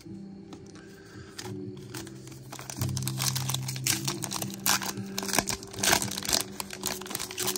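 A Topps Allen & Ginter card-pack wrapper crinkles and tears as it is ripped open by hand, loudest about halfway through. Background music with steady low notes comes in at the start.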